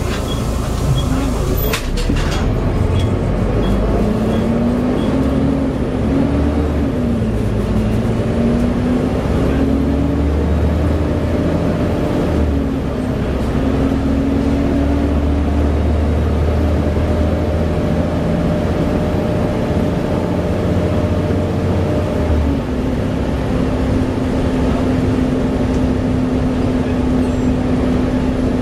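Volvo B7TL double-decker bus's diesel engine and ZF automatic gearbox, heard from on board, pulling hard: the pitch climbs and drops back in steps over the first several seconds as it goes up through the gears, then holds steady at speed. A single sharp click about two seconds in.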